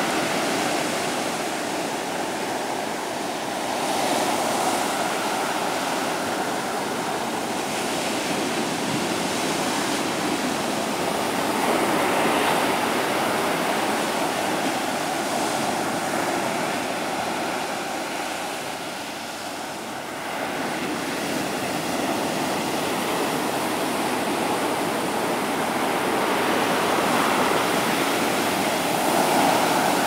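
Rough surf breaking on a sandy beach and washing up the shore: a continuous rushing wash that swells each time a bigger wave breaks.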